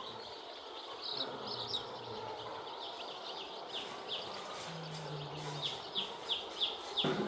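Poultry chicks peeping: a steady chorus of short, high, falling chirps, several a second.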